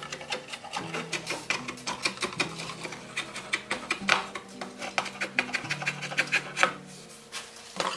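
Hand file scraping along a new wooden wagon axle in quick back-and-forth strokes, several a second, pausing briefly near the end. Background music plays underneath.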